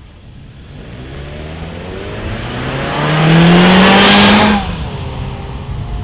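A small car's four-cylinder petrol engine accelerating hard toward and past the listener, its note climbing steadily in pitch and loudness. It is loudest between about three and four and a half seconds in, then drops suddenly to a lower, fading note as the car goes by.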